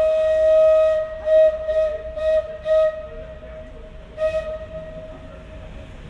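Locomotive horn sounding one steady note as the train passes overhead, with clicks of wheels running over the rails at each swell in loudness; the horn stops about five seconds in.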